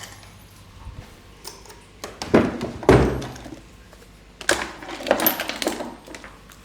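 Dull thumps and knocks of a body being moved and pressed on a treatment table during manual therapy: two strong thumps a little after two seconds, then a cluster of knocks and clicks about four and a half seconds in.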